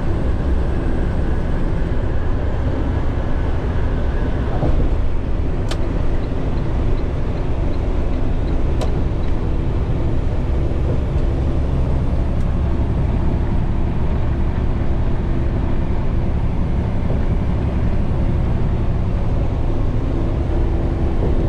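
Steady engine and road noise inside a truck's cab at highway speed. A faint whine stops about four and a half seconds in, and two light clicks come a few seconds apart.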